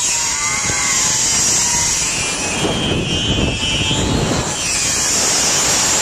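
Zip-line trolley pulleys running fast along the steel cable: a steady rushing whir with a faint wavering whine, mixed with wind rushing over the microphone from the speed of the ride.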